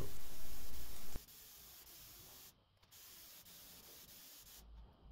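Compressed-air gravity-feed paint spray gun hissing as it sprays, cutting off abruptly about a second in, leaving only a faint hiss.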